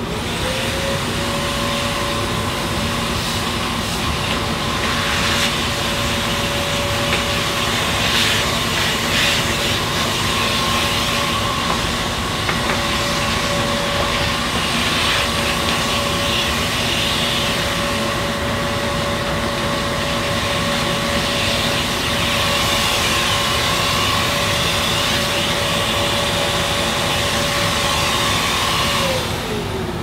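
An electric blower's motor spins up with a rising whine and runs steadily, blasting air through dust-clogged refrigerator condenser coils, then winds down near the end.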